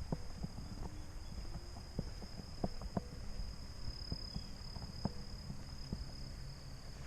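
Steady high-pitched insect chorus, crickets trilling, with scattered short knocks and clicks.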